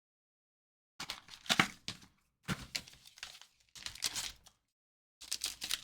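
Packaging being handled and opened by hand, crinkling and crackling in four short bursts.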